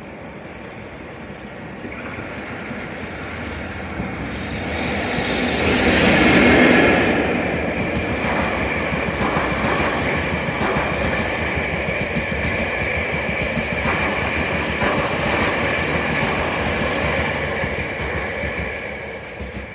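An electric locomotive hauling a train of new subway cars past at close range, growing louder to a peak about six seconds in as the locomotive goes by. It then settles into steady wheel and rail noise with clicks over the rail joints and a thin, high steady tone, fading near the end.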